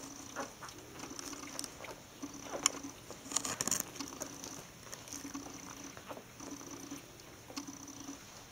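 Newborn poodle puppies suckling at their mother: faint smacking clicks and small rustles, with a louder flurry of clicks about three and a half seconds in.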